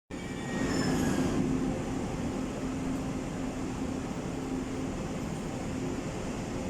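Taiwan Railway Tze-Chiang express train pulling out of an underground station. There is a steady rumble with a low hum, and a few brief high-pitched squeals in the first second and a half.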